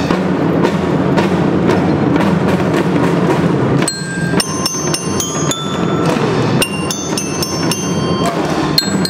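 Children's marching drum band playing: a dense beat of drum strokes, joined about four seconds in by a melody on bell lyra (marching glockenspiel) in clear, ringing high notes.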